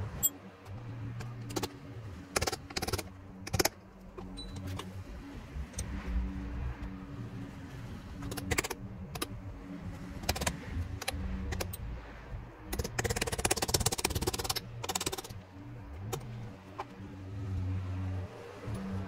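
Hammer striking a steel punch to drive the metal wedges out of an axe head's eye: sharp metallic knocks at uneven intervals, with a longer run of rough noise about thirteen seconds in. A low steady hum lies underneath.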